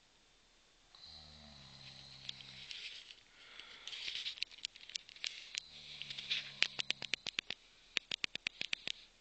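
A drunk man snoring in his sleep: two long, low snores, about a second in and again about six seconds in. Near the end the second snore breaks into a fast run of sharp clicks.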